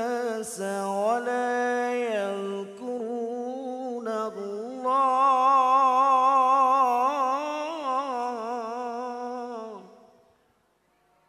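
A man chanting Quran recitation into a microphone: one unaccompanied melodic line of long, held notes with wavering ornaments, ending about ten seconds in.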